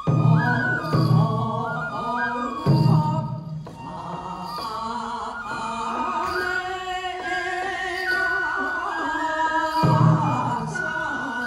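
Japanese folk rice-planting dance (taue odori) music: a sung melody with long held notes, over a taiko drum struck a few times, heavy low beats near the start and again near the end.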